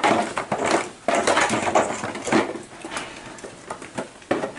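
Low plastic stools knocking and scraping on the floor as they are set down and sat on, an irregular run of clatters.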